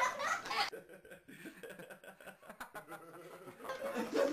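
People chuckling and laughing. About a second in, the laughter stops and for a few seconds there is only a faint crackling, like a plastic snack bag rustling as a dog eats with her head inside it. Near the end the laughter starts again.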